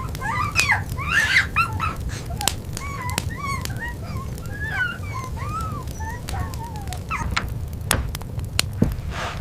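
Dog whimpering, a run of many short high whines that bend up and down and stop near the end. A steady low rumble sits underneath, with scattered sharp clicks.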